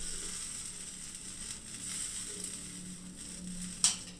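Pan of chicken sotanghon soup boiling on a gas stove, a steady bubbling hiss. A single sharp click comes near the end.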